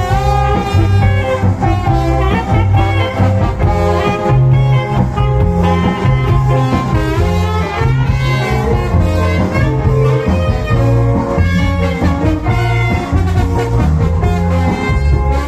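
Cha-cha dance music played loud through a mobile sound system, with a heavy bass line under a melody.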